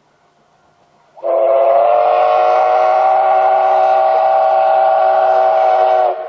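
Steam whistle of the D51 498 steam locomotive blown in one long blast of about five seconds, starting just over a second in, its pitch settling after a brief rise at the onset, then cutting off sharply near the end.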